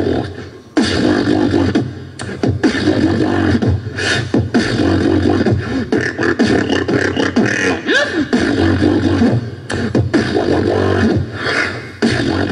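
Dubstep-style beatboxing: one person making drum hits and sliding, wobbling bass sounds with the mouth into a cupped hand. After a short lull it kicks in abruptly a little under a second in and runs on densely, breaking off briefly near the end.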